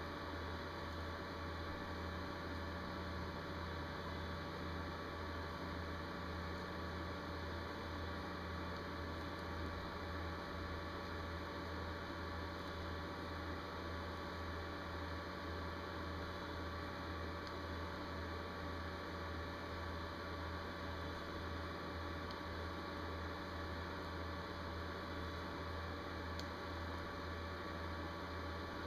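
Steady low electrical hum with a faint even hiss, unchanging throughout.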